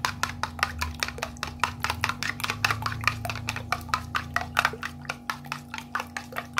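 Metal spoon whisking raw eggs in a plastic bowl: rapid clicking taps of the spoon against the bowl, several a second and without a break, over a steady low hum.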